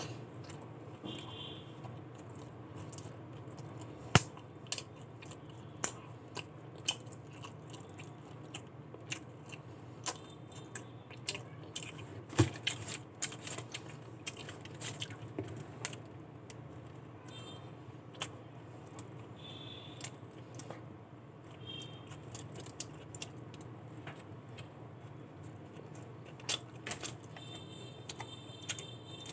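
Close-up chewing and biting of a fried chicken burger: soft wet mouth sounds with many small sharp clicks, and two louder clicks at about four and twelve seconds in.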